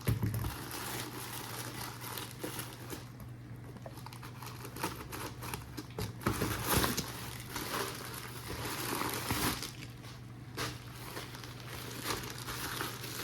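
Plastic packaging crinkling and rustling irregularly as it is handled and pulled open, with many small sharp crackles.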